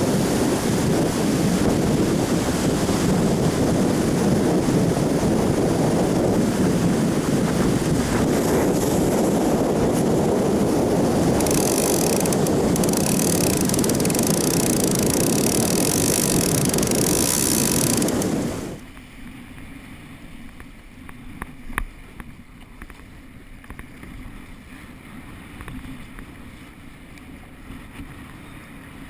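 Strong wind buffeting the microphone over breaking surf. About two-thirds of the way through it cuts to a much quieter, muffled sound of a kayak being paddled, heard through a camera on the kayak, with a few light knocks.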